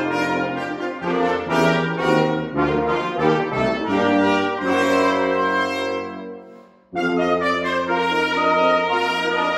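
Brass quintet of two trumpets, French horn, trombone and tuba playing a carol arrangement in full chords. About five seconds in, a held chord dies away to near silence. The whole group then comes back in together about two seconds later.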